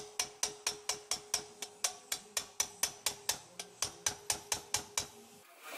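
Valve stem ends of a Toyota Prado 4.0 cylinder head being tapped in quick succession, about five taps a second, to seat the valve keepers after assembly. The tapping stops about five seconds in.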